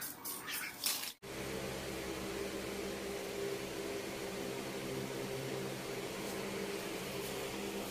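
Short hisses of an aerosol spray-paint can in the first second. After an abrupt cut, a steady machine hum with several low steady tones over an even hiss.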